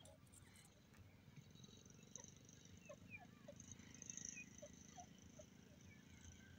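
Near silence: faint field ambience with a low rumble and scattered soft, short bird chirps, several a second.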